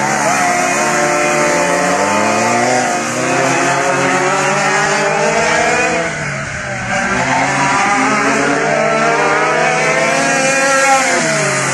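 Several racing go-kart engines, a dual reed-valve two-stroke and a Wankel rotary among them, running hard and revving up and down together as the karts race through the turns. Their pitch drops about halfway through and again near the end, then climbs as they pull back onto the throttle.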